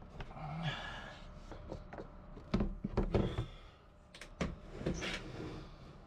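Irregular knocks, clicks and short scrapes of a screw and fastening tool being worked against a bilge pump float switch mount in a cramped fibreglass boat bilge, the screw being fought back into place; the loudest knocks come about halfway through and again near the end.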